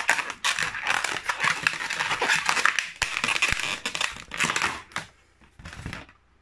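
Long latex modelling balloons being twisted and folded by hand, a dense run of rubbing and squeaky friction noise that stops about five seconds in.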